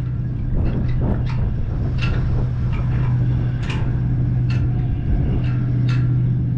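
A motor running with a steady low hum, with scattered short clicks and knocks over it.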